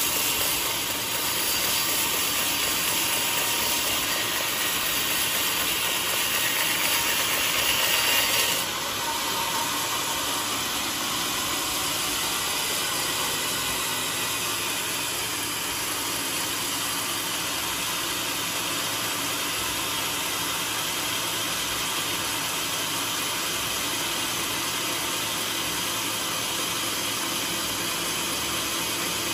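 Large sawmill band saw cutting through a teak log: a steady hissing rush that grows a little louder and then drops off suddenly about eight or nine seconds in. After that the saw keeps running with a steady, quieter noise.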